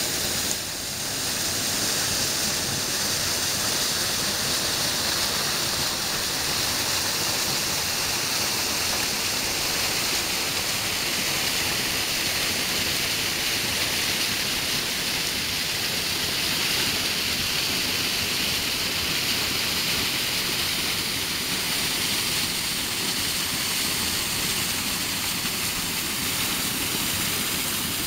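Steady rushing of a rocky forest stream and a small waterfall pouring over rocks into a pool, an even hiss with no change.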